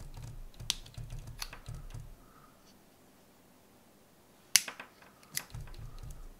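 Hands handling a LiPo battery pack and picking at its plastic shrink wrap: dull rubbing and bumping with a few sharp plastic clicks. The loudest click comes about four and a half seconds in, after a quiet pause.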